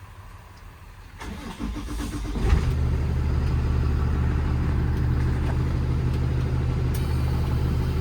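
Cummins ISB 6.7-litre six-cylinder diesel in a Freightliner M2 being started: the starter cranks for about a second and a half, the engine catches with a loud burst about two and a half seconds in, then settles into a steady idle.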